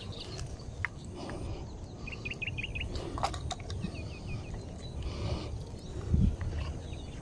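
Rustling grass and camera-handling noise as the camera is moved through tall grass, with a few light clicks. A bird gives two quick runs of chirps between about two and four seconds in, and a dull thump comes about six seconds in.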